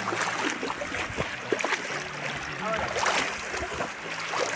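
Shallow seawater lapping and splashing around reef rock and wading legs, with scattered small splashes and clicks. A low steady hum runs underneath for much of it.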